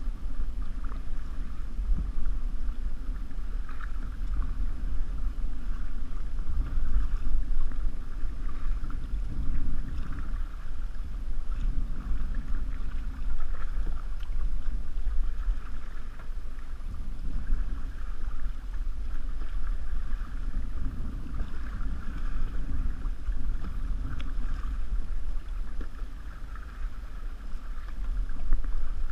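Water rushing and lapping along the hull of a canoe under way, in uneven surges, over a steady deep wind rumble on the microphone.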